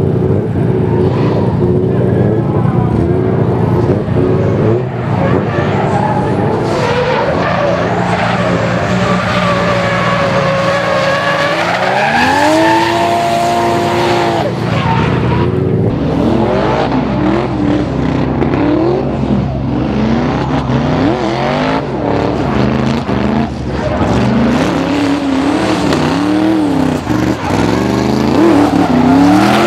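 Drift car engine revving hard through slides. The pitch climbs and holds high about twelve seconds in, then rises and falls quickly again and again as the throttle is worked, over the steady hiss of tyres spinning and smoking on asphalt.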